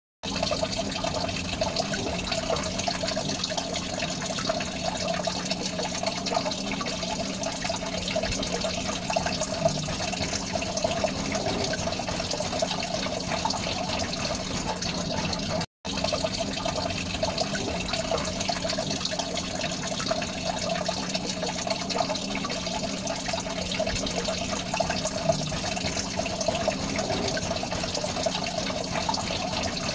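Water running and bubbling steadily in a small aquarium, with a steady low hum underneath. The sound cuts out for an instant about halfway through.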